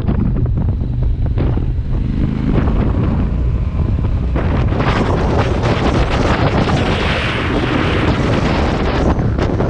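Wind buffeting the microphone over the low running of an off-road vehicle's engine on a gravel track; the wind noise grows stronger about halfway through.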